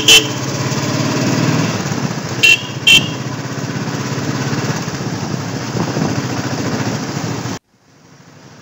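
Royal Enfield Thunderbird 350's single-cylinder engine running steadily under way, under heavy road and wind noise. Short, loud horn honks come right at the start and twice more, about two and a half and three seconds in. About a second before the end the sound cuts off abruptly, leaving only a faint hiss.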